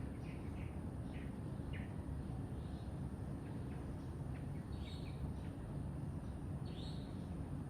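Birds chirping in short calls, several quick ones in the first two seconds and louder ones about five and seven seconds in, over a steady low background rumble.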